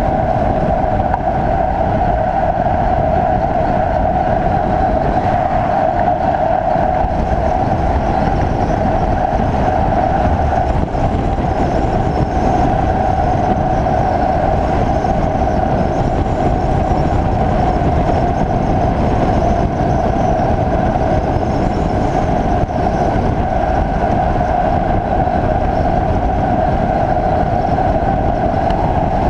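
Steady rushing wind noise and tyre hum from a mountain bike coasting fast down an asphalt road, holding an even pitch at a constant speed.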